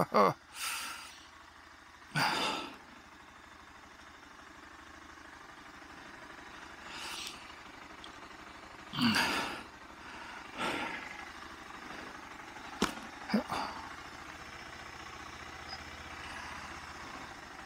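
A few short breathy sighs and grunts close to the microphone, spread out over several seconds, above a faint, steady low hum.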